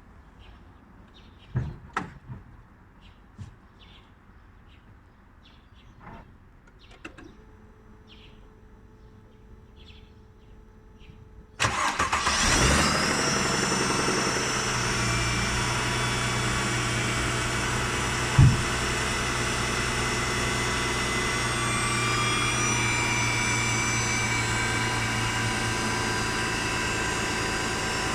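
Mercedes-Benz M272 V6 engine started after standing: a few clicks and a faint steady hum, then about twelve seconds in it cranks, catches with a brief rattle of knocking, and settles to a steady idle. One sharp thump a few seconds into the idle is the loudest sound.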